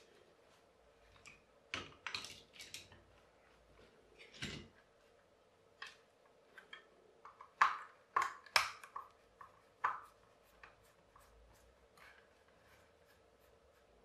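Irregular small clicks and light knocks of plastic and metal parts as a hand blender's opened housing is pried apart with a screwdriver to get at the gearbox, with a run of sharper clicks about eight seconds in.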